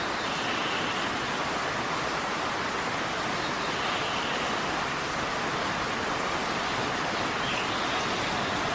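Heavy rain pouring down on the platform and tracks: a steady, even hiss.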